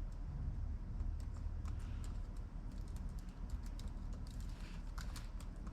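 Typing on a MacBook Pro laptop keyboard: a run of light key clicks, sparse at first and coming faster in the second half, as a password is typed into Terminal.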